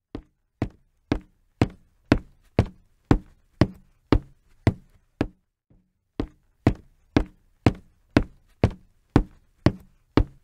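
A steady series of sharp knocks, about two a second, each dying away quickly, with a brief break a little past halfway before the knocking resumes.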